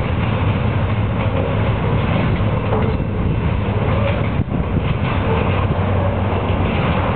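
Container wagons of a diesel-hauled freight train rolling away along the track, a steady rumble with a low hum, and a few faint short squeals from the wheels.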